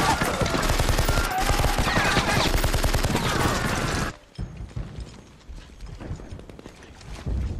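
Dense battle gunfire, rapid rifle and machine-gun shots crackling together with men shouting, which cuts off abruptly about four seconds in. A much quieter stretch follows with faint, scattered clicks and pops.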